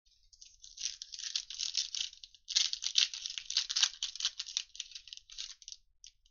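Foil wrapper of a 2021 Illusions football trading-card pack being torn open and crinkled by hand: a dense run of crackling, loudest in the middle and thinning out near the end.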